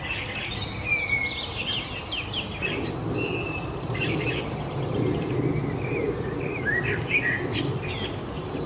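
Several birds singing and chirping at once, short overlapping whistles and trills, some rising and some falling, over a steady low background rumble.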